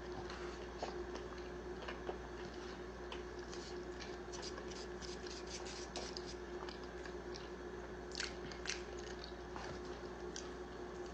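A person chewing and biting into a fried chicken sandwich, with many short crunchy clicks, thickest around the middle and with two louder ones about eight seconds in, over a steady low hum.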